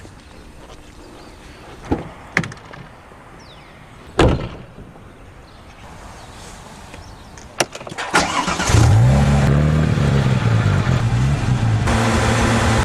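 A few sharp clicks and a thump, then the Porsche 911 GT3 (997.2) 3.8-litre flat-six starts about eight seconds in. It rises briefly in revs, drops back and settles into a loud, steady idle.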